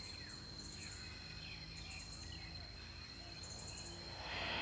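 Tropical jungle ambience: a steady high insect drone, with short chirps repeating above it and faint bird calls gliding up and down. About four seconds in, a soft hiss swells.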